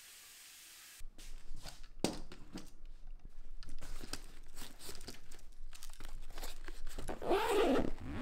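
Faint running tap water for about a second, then a camera bag being packed: close rustling of fabric and padding with clicks and knocks of camera gear. Near the end comes the loudest sound, a zipper being pulled.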